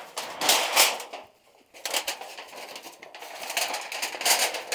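Thin rolled titanium stove-pipe sheet being unrolled over pine needles, the springy metal rattling and scraping in uneven bursts. It is loudest about half a second in, pauses briefly, then scrapes on with more bursts near the end.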